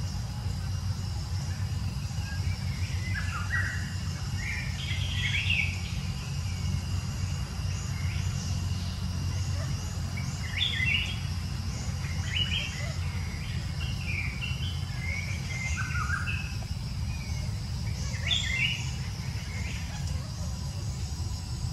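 Short high chirping animal calls in scattered clusters, over a steady low rumble.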